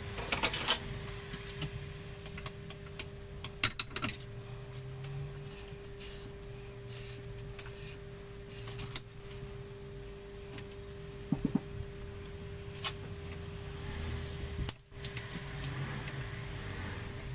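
Metal tools and engine parts clinking and tapping in scattered handling sounds during hand assembly of an engine, over a steady hum.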